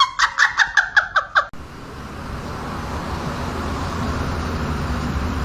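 A quick run of high-pitched laughing sounds that cuts off suddenly, then a steady low rumble of a domestic cat purring close to the microphone.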